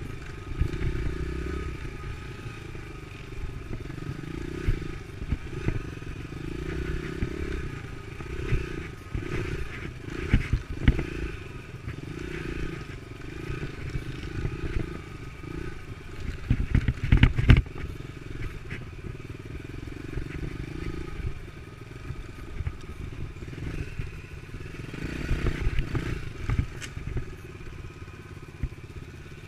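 Dirt bike engine running along a trail, its pitch rising and falling with the throttle, with bursts of clattering knocks, loudest about halfway through and again near the end.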